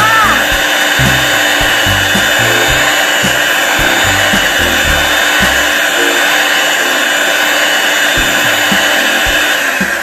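Electric hand mixer running steadily, its beaters whisking egg and water into a froth, cutting off at the very end. Background music with a steady bass line plays underneath.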